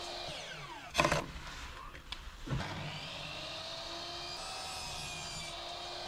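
Compound mitre saw: the blade winds down after a cut, with a sharp knock about a second in. About two and a half seconds in the motor starts again, whines up to speed and then runs steadily.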